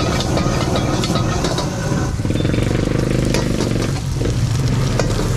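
Steady noise of a high-output gas wok burner running under a carbon-steel wok, with food sizzling and the flames flaring. In the first two seconds a metal ladle scrapes and clanks against the wok in quick strokes.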